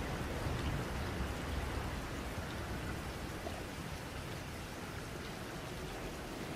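Steady rain, with a low rumble of distant thunder underneath that eases after the first few seconds.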